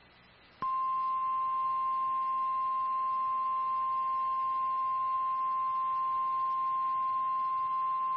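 National Weather Service 1050 Hz warning alarm tone: one steady, unwavering high tone that starts suddenly about half a second in, after a moment of quiet. It is the attention signal that precedes a severe thunderstorm warning broadcast.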